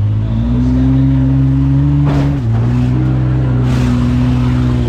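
Derby van's engine revved hard and held at high revs, heard from inside the cab. Its pitch dips and settles lower about two and a half seconds in, with short noisy bursts around two and three and a half seconds in.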